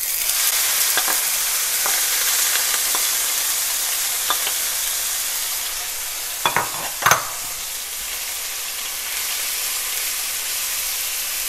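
Grated beetroot sizzling steadily in hot ghee in a frying pan as it is tipped in and stirred with a wooden spatula, a little louder at first. A few light scrapes and knocks of the spatula, with two sharper clatters a little past the middle.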